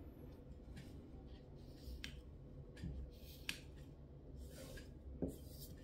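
Faint rustling and a few light clicks of paper and small objects being handled, as paper and tissue are set out for a knife sharpness test.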